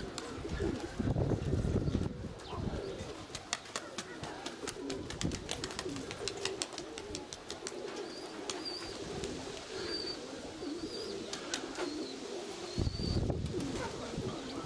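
Nikolaev pigeons cooing continuously, with a quick run of sharp clicks in the first half and a few short high chirps later. Wind buffets the microphone at the start and again near the end.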